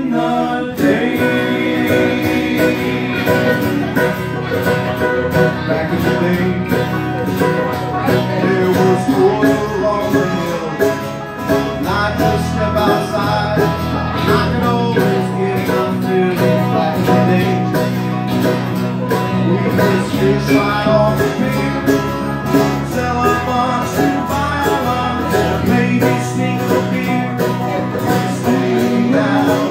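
Bluegrass band playing live: banjo, mandolin and two acoustic guitars picking together in a fast, steady rhythm.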